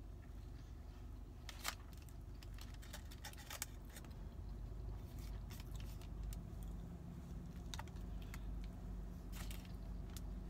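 Aluminium foil crinkling and crackling in irregular bursts as a taco is handled in its wrapping, with some chewing, over a steady low hum.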